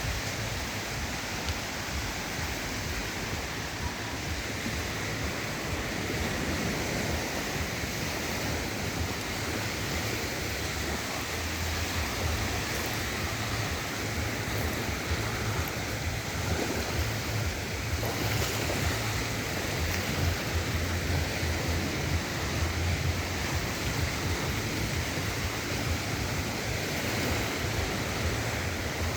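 Sea waves washing onto the beach in a steady surf, with wind buffeting the microphone in a low uneven rumble.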